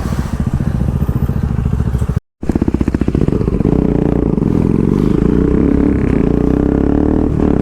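Motorcycle engine running through its exhaust with the dB killer removed, a loud, fast low pulsing. It drops out for a moment about two seconds in, then pulls on steadily with a slowly rising pitch.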